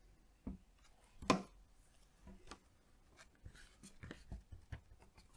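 Faint paper-craft handling: a glue stick rubbing on paper and a paper cutout being pressed and smoothed down by hand, with scattered light clicks and taps, the sharpest about a second in.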